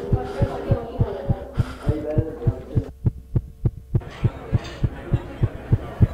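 Heartbeat sound effect thumping fast and steadily, about three beats a second, under a muffled, murky jumble of voice-like sound and hum. About three seconds in, the jumble drops out for roughly a second, leaving only the beats and a faint steady tone.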